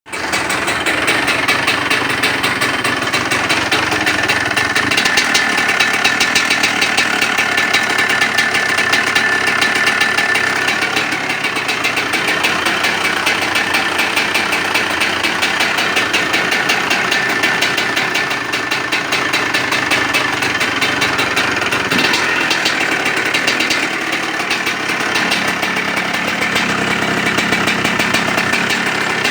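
2003 Honda CR250's two-stroke single-cylinder engine running on its first start after a rebuild, mostly at a steady idle with small rises and falls in speed.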